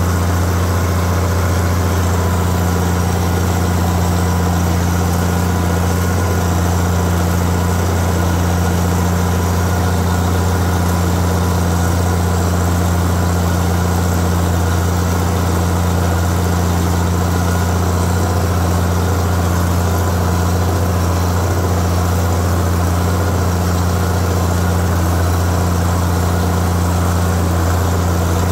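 Case tractor engine pulling a four-bottom plow through the soil, running under steady load at a constant, low, even pitch.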